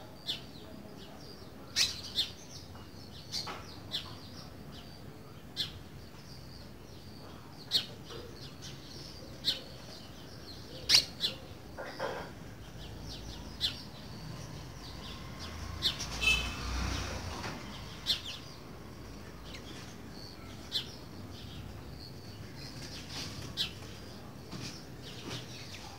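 Green-winged saltator (trinca-ferro) giving short, sharp single chip calls at irregular intervals of a second or two, not its full song. A brief rustling flurry with a low thump comes about two-thirds of the way through.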